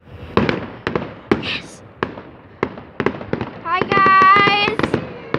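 Fireworks going off in a rapid, irregular series of sharp bangs, about a dozen in five seconds. About three and a half seconds in, a voice holds a long, high, steady call for about a second over the bangs.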